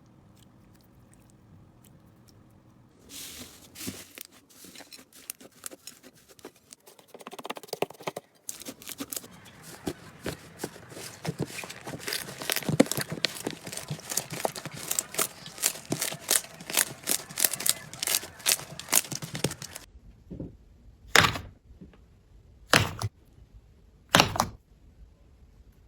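Slime being handled: quiet at first, then a long stretch of crackling with many sharp pops and clicks, followed by three separate sharp squishes about a second and a half apart near the end.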